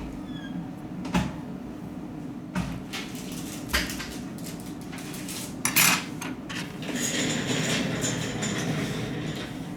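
Small repair tools and phone parts clicking and clinking against each other and a hard work surface during a Nexus 6 disassembly: four separate sharp clicks, the loudest a little before halfway, then a few seconds of scraping. A steady low hum sits underneath.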